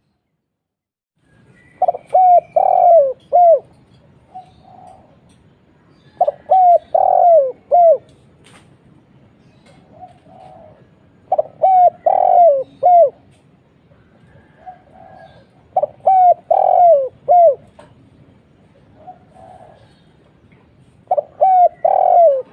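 Spotted dove (tekukur) cooing: five phrases of four or five short, downward-bending notes, about one every four and a half seconds, with softer single coos in between.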